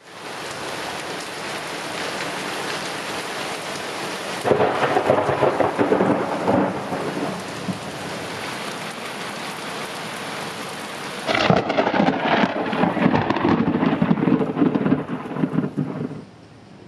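Close lightning strikes and thunder over steady rain hiss. About four and a half seconds in a sudden thunderclap crackles and rumbles for a couple of seconds. About eleven seconds in a second strike gives a sharp crack followed by loud rumbling thunder that lasts several seconds and cuts off near the end.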